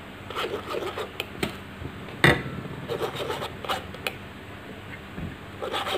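A metal spoon stirring and scraping thick batter against a stainless steel mesh sieve to push it through, in soft, irregular scrapes, with one sharp click a little over two seconds in.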